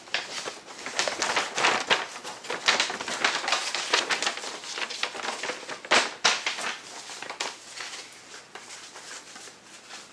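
Paper and card packaging rustling and crinkling as it is handled: irregular crackly rustles with a couple of sharper crackles in the first six seconds, getting quieter near the end.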